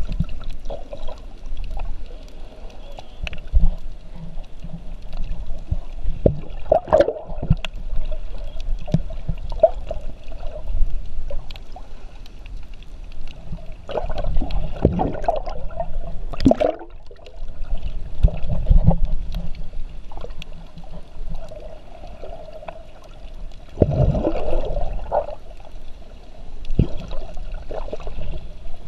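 Underwater sound of shallow seawater, muffled through a camera's waterproof housing: sloshing and gurgling surge, with louder swells every few seconds and scattered clicks.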